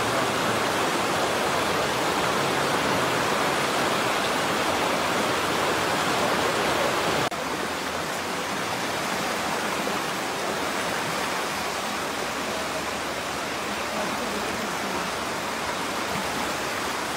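Steady rushing of fast-flowing floodwater. About seven seconds in it cuts abruptly to a somewhat quieter rush.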